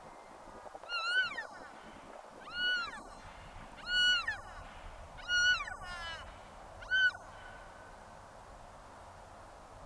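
Cow elk giving five short, high calls about a second and a half apart, each rising then falling in pitch; the calls stop about seven seconds in.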